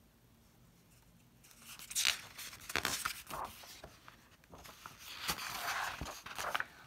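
Pages of a picture book being turned by hand: paper rustling and flapping with a few sharper crackles, starting about a second and a half in.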